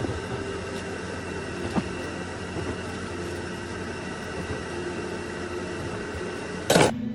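Large knife cutting through a soft loaf of white bread on a wooden board, with a light knock of the blade on the board about two seconds in, over the steady hum of café equipment. A short, loud knock comes just before the end.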